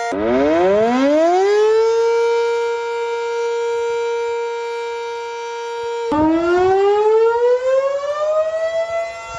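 Outdoor warning siren winding up from a low pitch to a steady, loud wail that it holds for several seconds. About six seconds in a second siren starts low and rises slowly in pitch.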